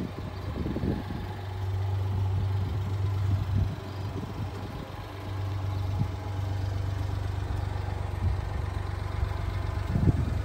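1994 Honda Acty mini truck's small three-cylinder engine idling steadily, its level swelling and fading, with a sharp knock near the end.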